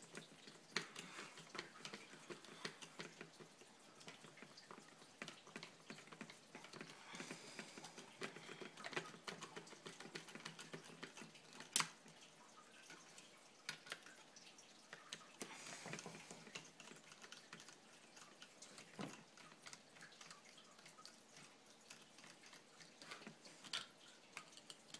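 Faint, irregular small clicks and taps of a hex driver and fingers working screws out of a Traxxas RC truck, with one sharper click about halfway.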